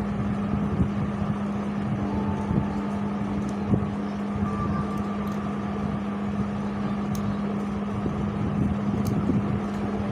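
A steady low hum at one pitch over a constant background rumble, with a few faint clicks.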